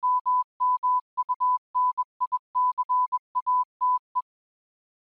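Morse code beeping: one steady tone keyed on and off in quick short and longer pulses, stopping a little past four seconds in.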